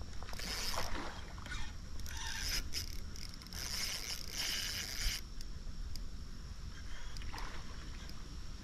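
Hooked chinook salmon splashing and thrashing at the surface of a shallow creek, in three bursts during the first half, over a steady low rumble.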